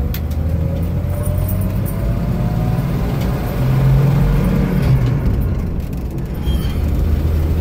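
Ford 300 cubic-inch inline-six running steadily as the Bronco drives down the road, heard from inside the cab with road noise. A faint whine rises in pitch over the first few seconds.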